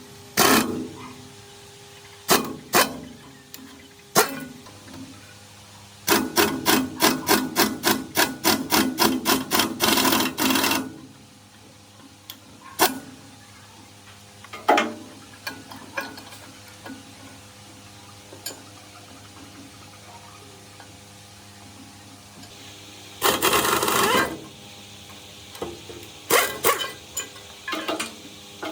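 Metal restoration work over a steady machine hum: scattered sharp knocks, then a fast run of hammer-like strikes, about four or five a second, lasting around five seconds. Another short dense burst of strikes comes a little past the middle, and a few single knocks follow near the end.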